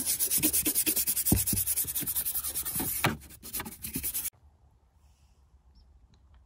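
A toothbrush scrubbing a car's dashboard top lathered with cleaner, in quick back-and-forth strokes that cut off abruptly about four seconds in.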